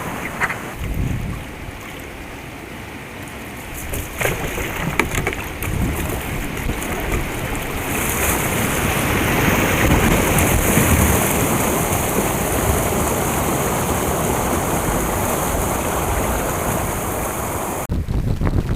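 Steady rushing noise of wind and open water, with a few sharp knocks about four to six seconds in. The noise swells louder about eight seconds in and changes abruptly just before the end.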